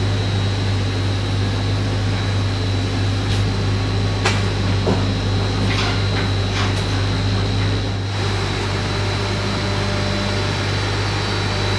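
Forklift loading a generator onto a truck trailer's wooden floor: a steady low machine hum with a faint high whine, and a few light knocks around the middle.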